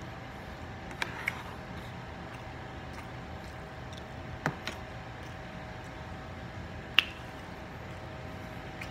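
Metal spoon clicking against a plate a few times, the loudest about seven seconds in, between quiet chewing of scrambled eggs. A steady hum runs underneath.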